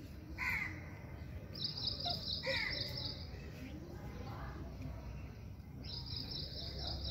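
A crow cawing twice, harsh falling calls about half a second in and again about two and a half seconds in. A high, rapid, buzzy trill sounds twice alongside, about one and a half seconds in and again about six seconds in.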